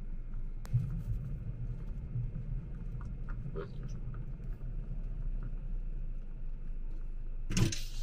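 Steady low hum of a car on the move, with a single click about a second in and a short sharp knock near the end.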